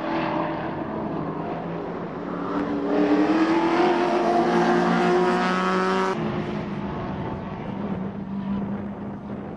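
Group A and Group C touring car engines racing through a corner and accelerating away. One engine's pitch climbs steadily from about two and a half seconds in. About six seconds in the sound changes abruptly to other cars running at a lower, steadier pitch.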